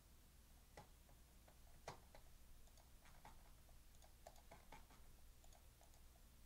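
Near silence: quiet room tone with faint, scattered small clicks and taps, the clearest about two seconds in.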